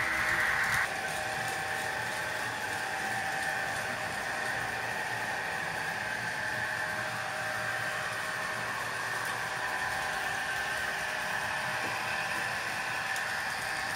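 Model railway trains running on the layout: a steady electric-motor whine with wheels rolling on the track, a little louder for about the first second.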